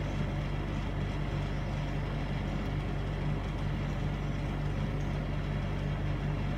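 Window air conditioner running with a steady low hum and an even whir of air.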